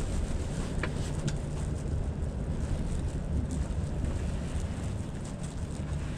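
Strong wind buffeting the microphone: a steady, low rumbling noise, with a couple of faint clicks about a second in.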